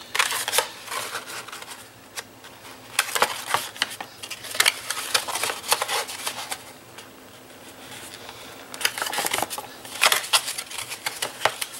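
Stiff cardstock rustling and crackling as hands fold, press and turn a paper gift box, in three spells of handling with quieter pauses between.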